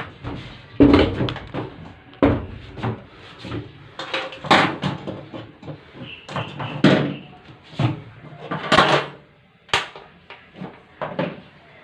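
Irregular knocks and clatter of objects being handled and set down, a dozen or so uneven strikes with pauses between.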